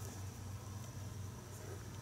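Quiet room tone with a steady low hum, and faint rustling as a buckskin-look leather coat sleeve is handled and adjusted.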